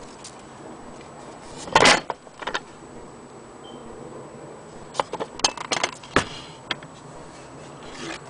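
Handling knocks and clatters from a wooden sewing-machine case base and its cast-iron hand crank being moved about. One loud clatter comes about two seconds in, and a run of smaller knocks and clicks follows about five to six seconds in.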